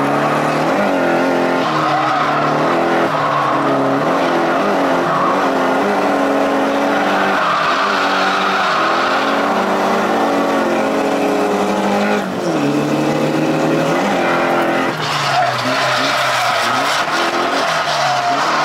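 Nissan 180SX engine revving hard inside the cabin, its pitch swinging up and down with the throttle while the tyres squeal continuously through a drift. The engine drops away briefly about twelve seconds in and again about fifteen seconds in.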